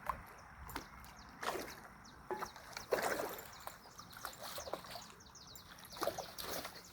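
Water splashing in irregular bursts, several in the first three seconds and two more near the end, typical of a fish thrashing at the surface of a fishing pond.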